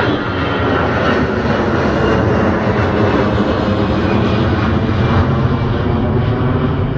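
Twin-engine jet airliner passing low overhead, its engines making a loud, steady rumble with a faint whine on top.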